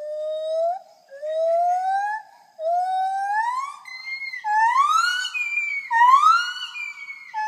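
A monkey calling in a series of whooping notes, each about a second long and sliding upward in pitch. The notes climb higher and grow louder toward a peak about five to six seconds in.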